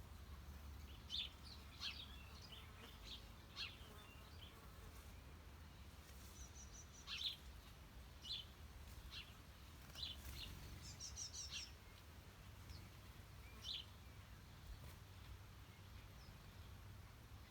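Small birds chirping now and then: short, high, separate chirps, with a quick run of rapid notes about eleven seconds in, over a faint steady low rumble.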